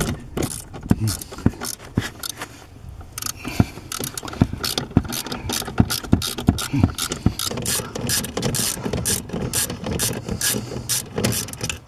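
Ratchet wrench with a 10 mm socket clicking in quick runs as it undoes small mounting nuts, the clicks sparser for the first few seconds and then coming thick and fast.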